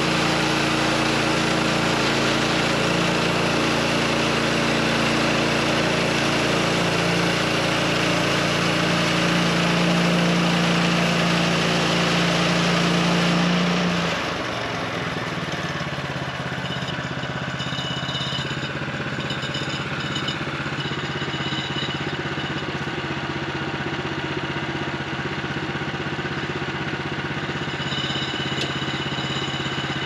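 Gas engine of a Woodland Mills HM126 portable band sawmill running under load while the band blade cuts through a spruce log. About 14 seconds in, the cut ends and the engine drops to a steady, quieter idle.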